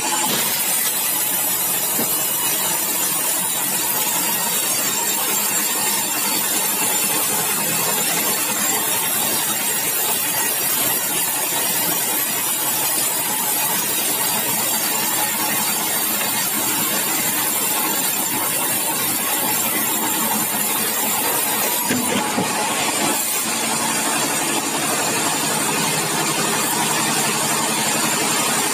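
Large sawmill band saw cutting lengthwise through a big bengkirai hardwood log: a steady machine hum under the hiss of the blade in the wood. A brief knock comes about three-quarters through, after which the machine's hum stands out more.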